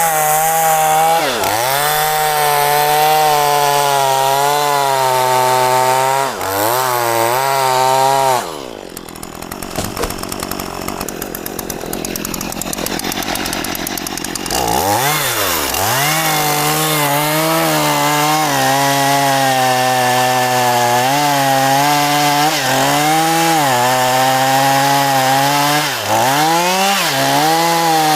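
Chainsaw cutting through mahogany wood, its engine pitch sagging and recovering under load as the chain bites. About eight seconds in it drops to a quieter idle for several seconds, then revs back up and resumes cutting.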